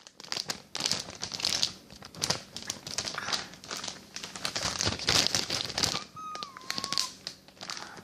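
Plastic mailer package being handled, crinkling in irregular bursts, with a short gliding whistle-like tone a little after six seconds.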